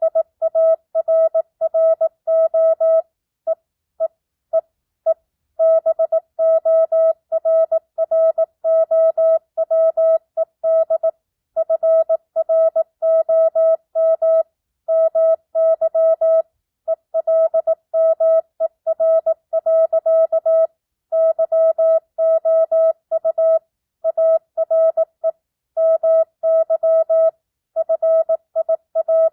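Morse code (CW) tone: a single-pitch beep keyed on and off in dots and dashes at 18 words per minute with standard, non-Farnsworth spacing, sending a simulated ham radio QSO. Longer pauses between bursts mark the spaces between words.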